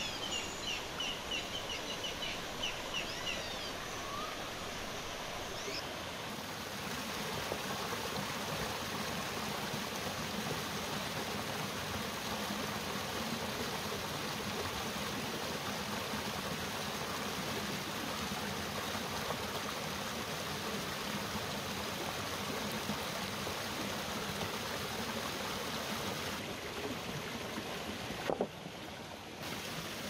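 Shallow mountain stream running over rocks, a steady rush of water. A quick series of high chirps sounds in the first few seconds, and a single sharp knock comes near the end.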